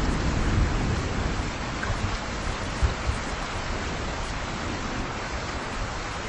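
Steady heavy rain, with a low rumble of thunder at the start that dies away over the first few seconds.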